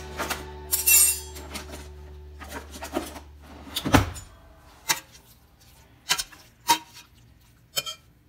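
A metal spoon knocking and scraping against a stainless steel pot while chopped raw beef is stirred, with a sharp clink about once a second. Background guitar music fades out in the first few seconds.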